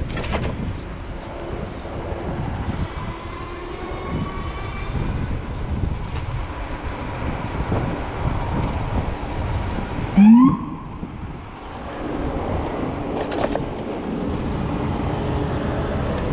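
Steady street traffic and wind noise while riding an electric bicycle. About ten seconds in, a single short, loud siren whoop rising in pitch: a police car's signal for the rider to pull over.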